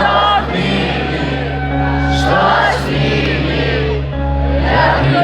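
A song playing: music with singing over sustained bass notes.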